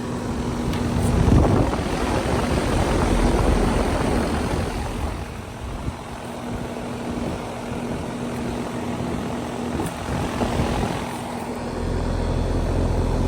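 2017 Ducane central air conditioner's outdoor condensing unit running: the condenser fan whooshing over a steady hum from its LG scroll compressor, the level rising and easing.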